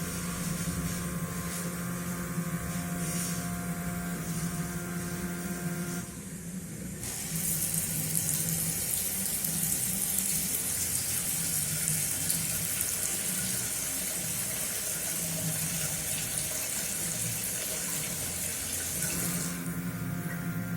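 Water pouring from a CNC farming machine's diaphragm-pump watering tool, a steady hiss lasting about twelve seconds as a metered dose is delivered to a seed. Before and after it the machine gives a steady hum with several held tones.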